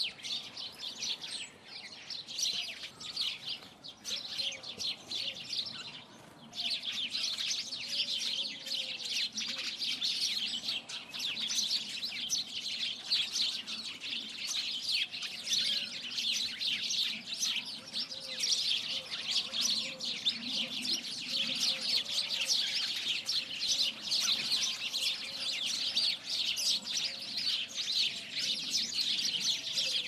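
Many small birds chirping rapidly and continuously in a dense chorus, with a brief lull about six seconds in.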